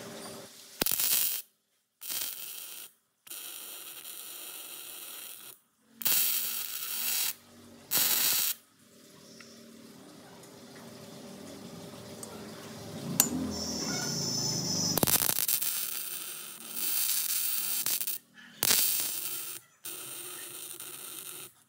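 MIG welder arc crackling in about six separate bursts, most a second or so long and one of about three seconds, each starting and stopping abruptly as steel brackets are tacked and welded onto a steel tube.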